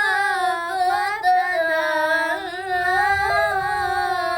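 A high female voice singing a sholawat with no accompaniment, holding one long wordless melismatic run whose pitch wavers in ornaments and drifts slowly downward.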